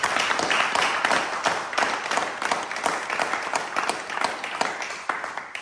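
Applause from a small group of people clapping, thinning out and fading near the end.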